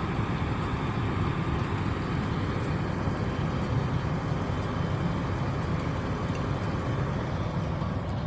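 Fire engine's diesel engine running steadily, a continuous low rumble.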